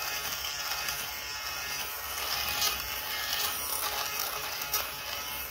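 Corded electric lint remover (fabric shaver) running with a steady motor buzz as it is moved over a sweatshirt, shaving off lint.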